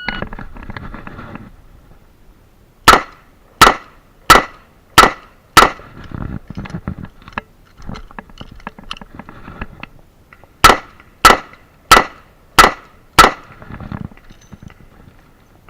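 A S&W Model 66 revolver fires two strings of five shots, each about two-thirds of a second apart. Between the strings come about five seconds of quieter clicking and handling as the revolver is reloaded with a speed loader.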